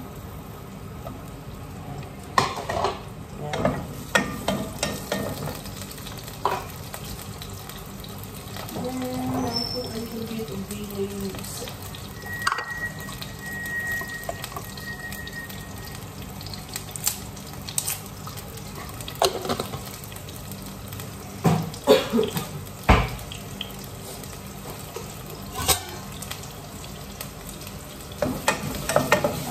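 Garlic, onion and ginger sizzling in hot olive oil in a pot, with scattered clinks and knocks from a spoon, a glass jar and dishes.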